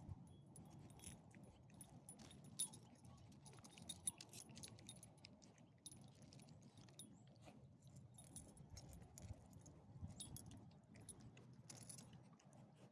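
Faint, irregular metallic jingling and clicking of small dogs' collar tags and leash hardware on a walk, with a few sharper clinks a few seconds in.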